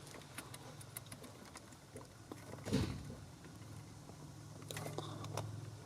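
Faint small clicks and rustling of hands working the plastic electrical connector off a brake light switch, with a brief louder scrape nearly three seconds in.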